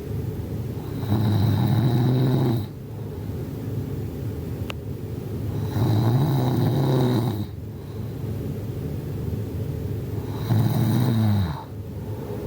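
A person snoring: three loud snores about four and a half seconds apart, each lasting a second or two, with quieter breathing between them.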